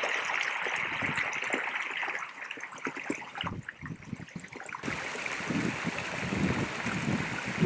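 Strong wind blowing across the microphone, a steady rush with gusty low buffeting that grows heavier in the second half.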